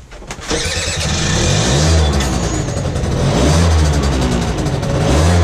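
PGO Hot 50 moped engine revving on the stand in repeated throttle blips, its pitch rising and falling three times.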